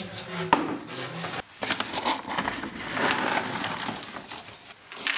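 Dry cat kibble being scooped out of a large food sack and tipped into a plastic bucket: a run of rattling clicks from the pellets, mixed with the sack rustling.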